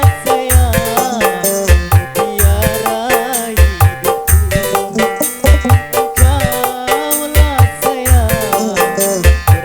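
Live dangdut music from an orgen tunggal keyboard setup: a wavering melody line with vibrato over a driving drum rhythm with deep bass thumps.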